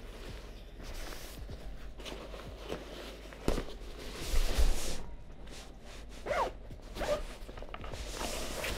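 The zipper of a fabric sling camera bag being pulled open in several short strokes, with the bag's fabric rustling and a couple of soft bumps as it is handled.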